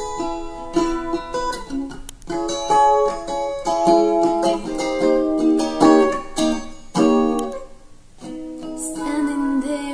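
Flight Pathfinder steel-strung electric ukulele played through a small NUX Mighty 8BT amplifier: a picked run of single notes and chords, with a short break about eight seconds in.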